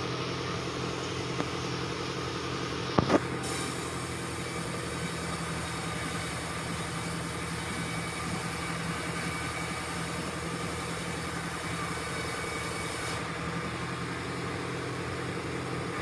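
A machine running steadily with an even, unchanging hum, and a brief sharp noise about three seconds in.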